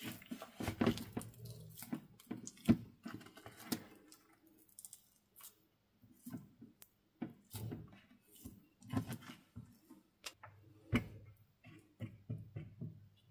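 Plastic spatula stirring white powder into a white liquid in a plastic bowl: irregular scrapes, soft squelches and light taps against the bowl, busiest in the first few seconds.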